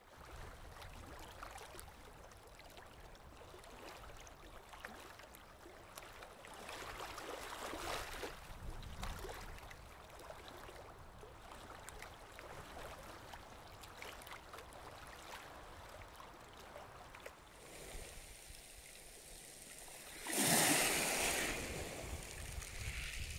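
Small waves washing and trickling over a pebble shingle beach, with a scatter of small clicks through the water. Near the end a louder wave surges up the stones and fades back.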